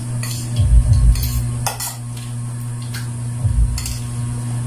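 Spoons and forks clinking and scraping on plates and bowls as people eat, a handful of scattered clinks over a steady low hum.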